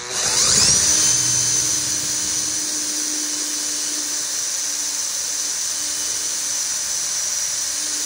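Cordless drill on high speed boring a hole through an aluminum bracket. The motor spins up with a rising whine in the first second, then runs at a steady high whine under load.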